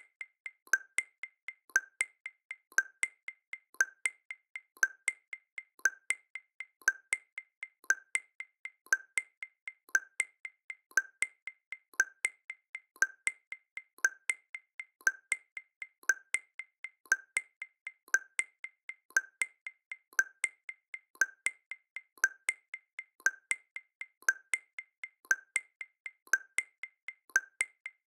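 Background music made of a steady clicking percussion pattern, like a wood block or metronome, a few clicks a second, alternating a lower and a higher tick, with no other instruments.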